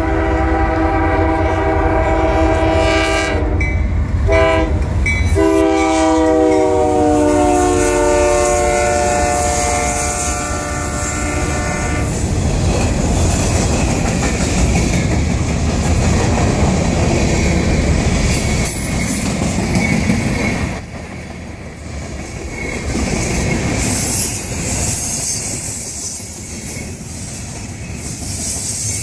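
Lead Canadian National diesel locomotive of a freight train sounding its multi-tone horn in several blasts for about twelve seconds, its pitch dropping partway through as it passes, over the low rumble of the engines. Then freight cars roll by with steady wheel clatter and rumble on the rails.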